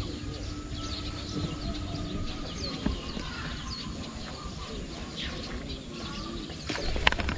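Outdoor rural ambience: birds chirping with many short falling calls over a low steady rumble. Near the end come a few sharp clicks.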